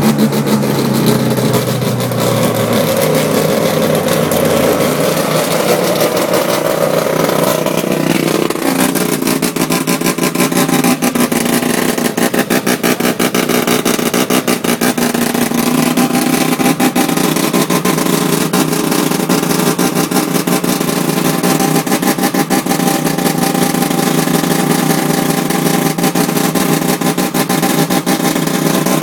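Mazda 13B peripheral-port rotary engine running loud, with a rapid pulsing exhaust note; the engine note shifts about eight seconds in.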